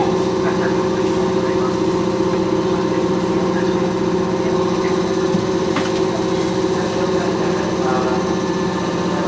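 Interior running sound of a Keisei 3400 series electric train car under way: a steady rumble of wheels on rail with a steady whine from the motors and gearing.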